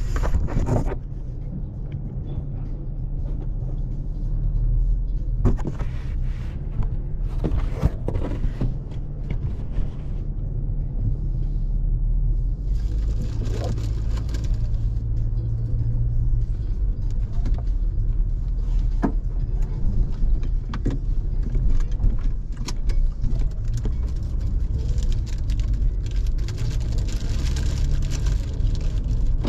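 A car in motion, heard as a steady low rumble of road and engine noise, with scattered clicks and knocks throughout.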